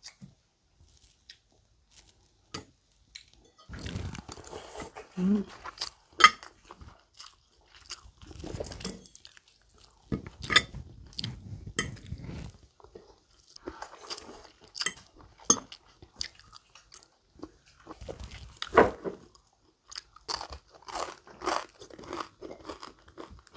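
Close-up chewing and crunching of food, in irregular bursts that start a few seconds in.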